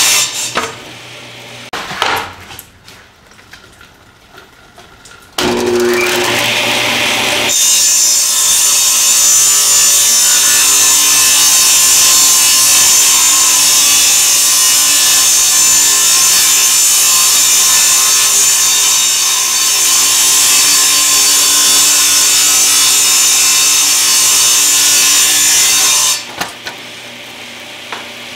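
Table saw ripping a wooden board. After a quieter stretch, the saw's sound jumps up about five seconds in and it cuts steadily for about twenty seconds, then drops back to a lower level near the end.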